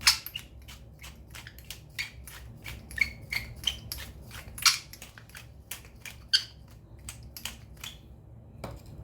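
Pepper grinder being twisted over the bowl: a run of sharp, irregular crunching clicks, a few a second, the loudest near the start and about halfway through.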